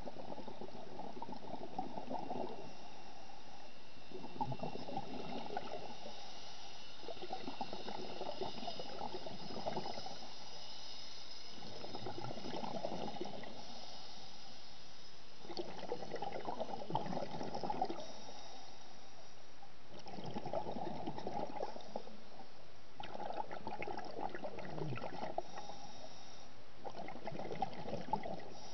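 Scuba diver's breathing heard underwater: a burst of bubbling from the regulator's exhaled air about every three to four seconds, with quieter gaps between breaths.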